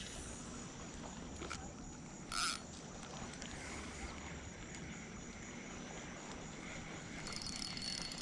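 Faint waterside ambience with a brief swish about two and a half seconds in as a spinning rod casts a lure. Near the end comes the faint whir of the spinning reel being cranked to retrieve it.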